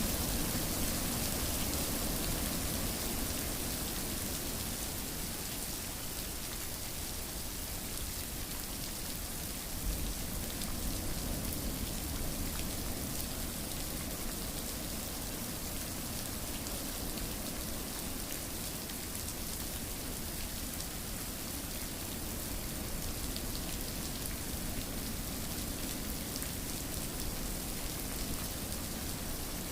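Steady rain falling, an even hiss of rain on surfaces that stays at the same level throughout.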